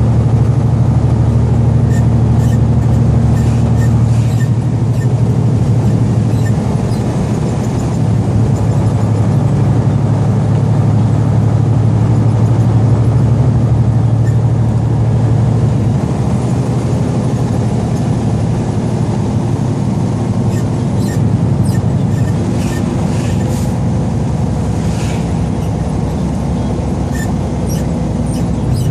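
Heavily loaded semi truck's diesel engine droning steadily as seen from the cab while driving, its note changing about four seconds in and again midway. Faint scattered clicks and rattles sound over the drone.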